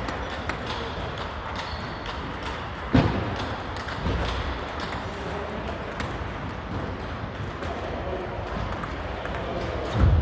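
Table tennis balls clicking off tables and bats in a large hall, a scatter of light ticks throughout. A heavier thump comes about three seconds in and another at the very end.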